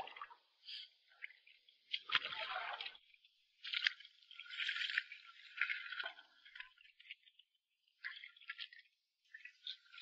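Hands splashing and dripping in shallow seawater, in several short bursts.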